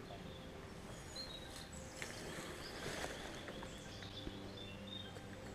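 Faint woodland ambience with scattered short bird chirps, and a brief rustling about two to three seconds in.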